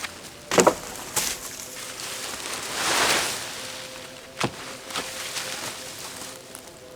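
Sharp wooden knocks and clatters as timber from a dismantled shelter is handled, the loudest a close pair of knocks a little over half a second in. A rustling swell in the middle, with single knocks about four and a half and five seconds in.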